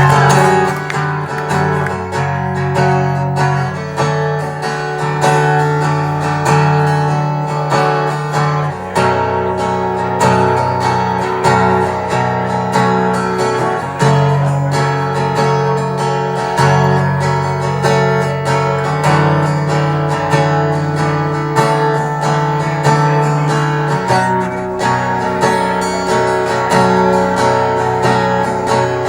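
Acoustic guitar strummed live, its chords changing every few seconds.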